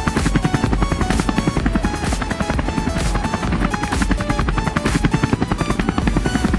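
Background electronic music with a fast, pulsing beat and a repeating melody.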